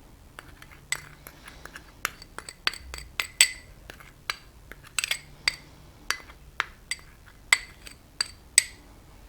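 A metal spoon clinking and tapping against a bowl, about twenty irregular sharp clinks, some ringing briefly, as baking soda and salt are measured into a cake batter bowl.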